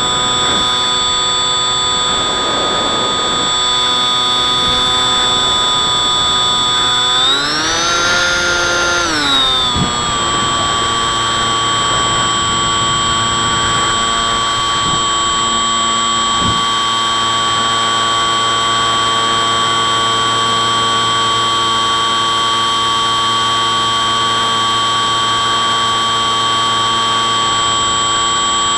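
Multiplex Bix3 model plane's brushless electric motor and pusher propeller whining steadily in flight, heard from the onboard camera. About seven seconds in, the pitch rises as the throttle opens, holds for a couple of seconds, then settles back to a steady, slightly lower whine, with two brief clicks.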